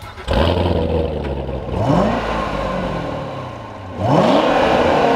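Corvette C7 Z06's supercharged 6.2-litre small-block V8 firing up suddenly just after the start, its exhaust settling into a steady run. It is then revved twice, rising in pitch about two seconds and about four seconds in.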